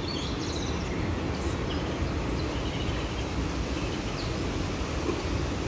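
Steady outdoor background noise, a low rumble and hiss, with a few faint high chirps now and then.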